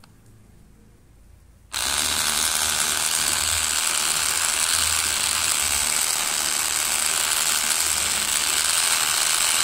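Handheld battery milk frother switched on about two seconds in, then whirring steadily as it whisks coffee with milk.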